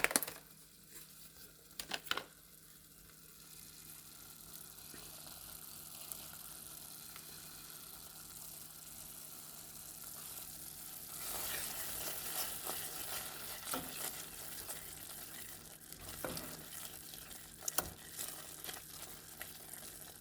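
Efo riro stew sizzling in its pot, the hiss swelling about halfway through, with a few sharp knocks of a spoon against the pot at the start and near the end.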